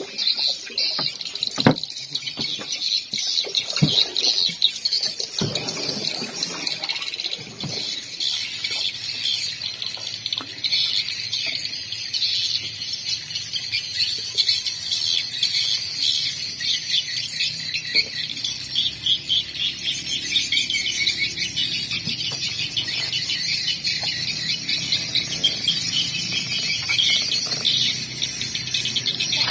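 Steady high-pitched insect chorus, shrill and unbroken, with a few sharp knocks in the first several seconds.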